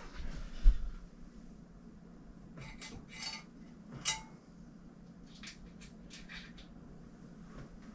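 A dull thump, then a few scattered light metallic clinks and taps of small hard objects being handled, in short clusters.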